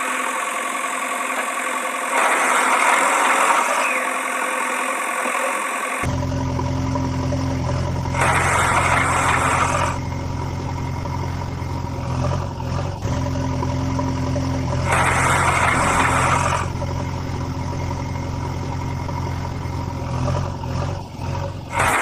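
Dubbed-in heavy-machine engine sound running steadily. A deep low hum comes in about six seconds in, and the engine swells louder three times.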